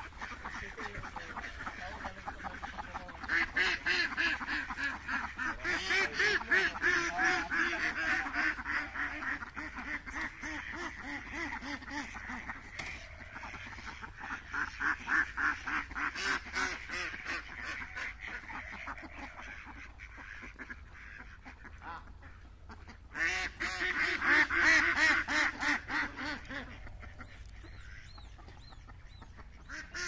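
A flock of domestic ducks quacking in rapid, overlapping runs, in loud bouts with quieter stretches between.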